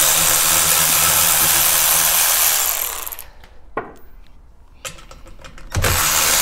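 Cordless electric ratchet spinning out the timing-cover bolts of a small generator engine, running steadily for about three seconds. It stops, with a couple of light clicks, then starts up again near the end.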